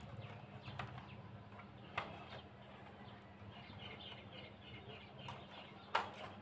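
Faint handling of a laptop being opened, with two sharp clicks, one about two seconds in and a louder one near the end. Faint bird chirps and a steady low hum sit underneath.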